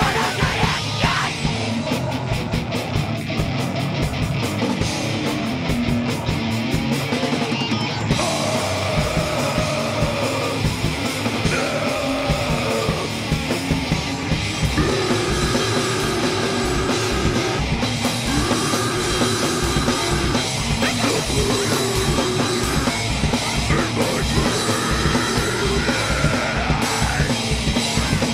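A powerviolence band playing live: fast drums with crashing cymbals, distorted guitars and bass, and shouted vocals.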